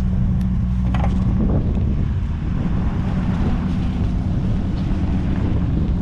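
Pickup truck engine running as the empty truck, worked by a remote-control module, moves off, with wind on the microphone. The steady engine hum turns rougher about a second and a half in.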